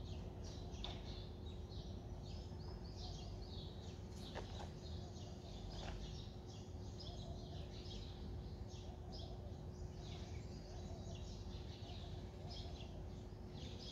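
Many small birds chirping and twittering without pause, over a low background rumble and a faint steady hum.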